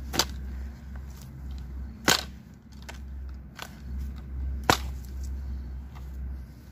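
Iron hand hoe chopping into dry red hill soil: three hard strikes about two seconds apart, with lighter knocks of the blade between them.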